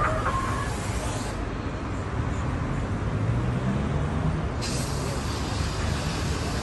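Street traffic noise heard from above: a steady rumble of vehicles with an engine running among it.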